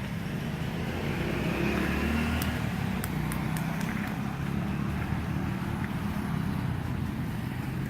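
Low, steady rumble of motor traffic, swelling in the first couple of seconds as a vehicle goes by. A few sharp clicks come in quick succession a few seconds in.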